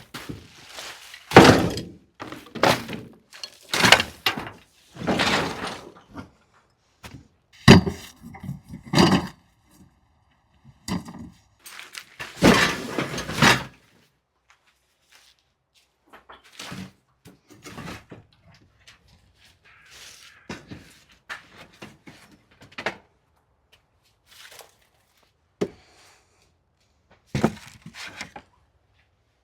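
Junk being cleared out by hand in a small brick room: irregular clatters, thuds and crashes as old tiles and debris are thrown into a barrow. A rattling stretch comes about eight seconds in. The knocks grow sparser after about fourteen seconds.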